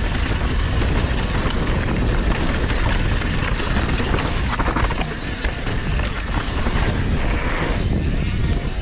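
Mountain bike descending a packed-dirt jump trail at speed: a steady rush of wind on the camera microphone mixed with tyre noise on the dirt.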